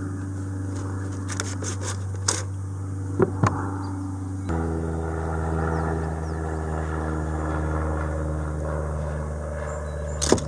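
Steady low drone of propeller aircraft engines overhead, whose pitch shifts suddenly about halfway through, with a few sharp clicks.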